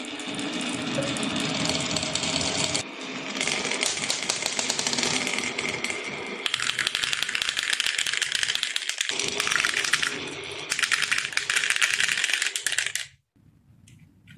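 Marbles rolling and clattering down a wooden marble run: a dense rattle of rapid clicks that changes tone a few times and cuts off about a second before the end.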